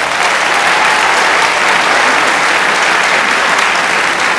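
Audience applauding, a loud and steady round of clapping.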